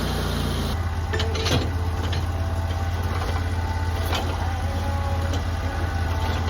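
Sawmill engine running steadily with a low, even hum, with a few scattered knocks and clicks.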